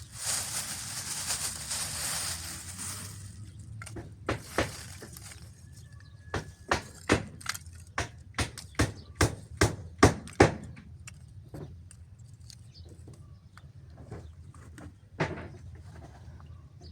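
A steady hiss for about three seconds, then a run of sharp knocks, one to two a second and growing louder, with a single further knock a few seconds later.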